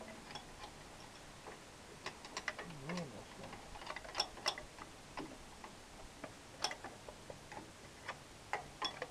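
Irregular light clicks and taps of a metal tool against a lawn tractor's small engine, as mouse-nest debris is picked and dug out.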